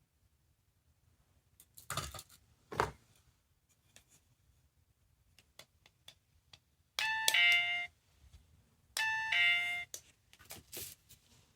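Small electronic sound toy playing a ding-dong doorbell chime twice, each time a higher note dropping to a lower one, with a couple of button clicks and handling knocks before it.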